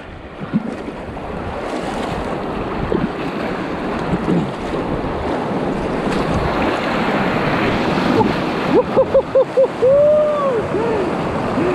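River rapids rushing and splashing, the rush growing louder over the first few seconds. Near the end a man lets out a quick string of short whoops.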